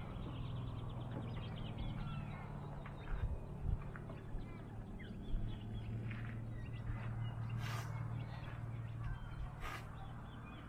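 Birds chirping and calling over a steady low hum, with a few knocks about three to five seconds in and two short hissing bursts near the end.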